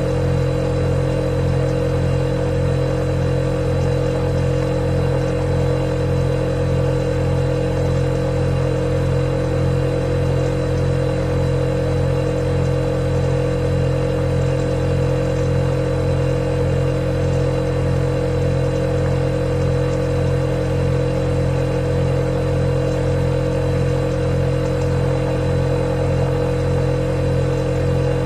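Refrigerator compressor running, a steady low hum with a few held tones over a faint hiss, unchanging throughout.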